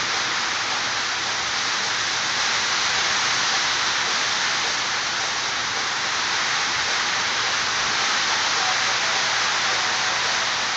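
Steady rain falling hard, an even, unbroken hiss.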